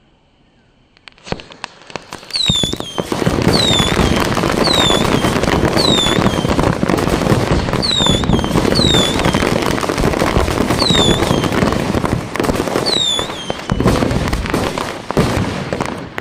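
A pit packed with many kinds of Diwali firecrackers going off at once. After about a second of quiet, a dense, continuous crackle of bangs builds up and runs on. Short, high, falling whistles recur about once a second through it.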